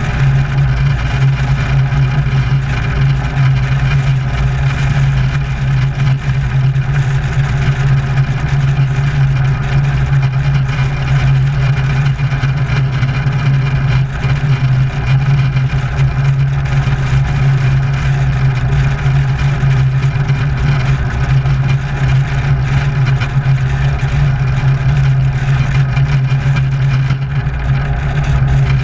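Wolf Pitts Pro aerobatic biplane's piston engine and propeller running steadily at low power on the ground, heard close up from a camera mounted on the outside of the airframe, with a strong low drone.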